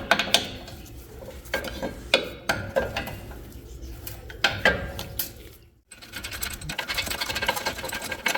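Socket wrench on the brake caliper bolts: scattered metal clinks and knocks, then from about six seconds in a fast run of ratchet clicks as the bolts are loosened.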